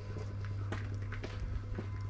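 Footsteps on a paved railway platform, several steps at walking pace, over a steady low hum.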